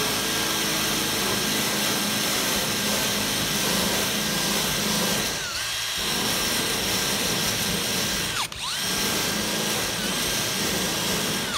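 Cordless drill spinning a small wire wheel against rusty steel crate wires, brushing off the rust: a steady motor whine over the hiss of the wire bristles. The whine dips briefly about halfway and sags more deeply about three-quarters of the way through, then stops near the end.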